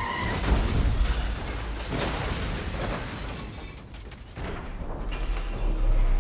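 Cinematic explosion and crash hits with a heavy low boom, as a vehicle is blown over, mixed with film-score music. The sound dips briefly, swells back up, and cuts off suddenly at the end.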